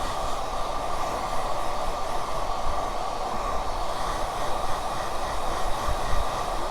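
Hair dryer running steadily at a constant pitch, blowing without a break.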